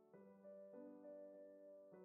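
Quiet background piano music, with slow notes and chords changing about once a second.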